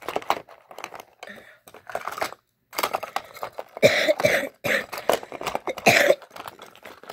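A person coughing, with two loud coughs about four and six seconds in. Light clicks and clatter of plastic toy cars being handled come before them.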